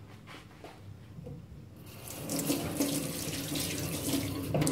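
Kitchen tap turned on about two seconds in, with water running steadily into the sink.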